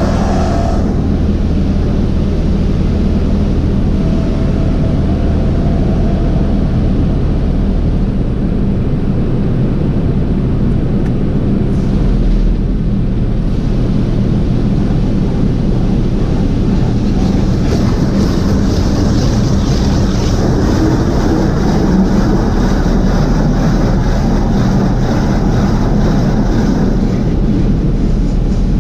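Drive-thru automatic car wash machinery running, a loud steady rushing noise over a low hum. The hum drops out about a third of the way in, and a brighter hiss builds up past the halfway point.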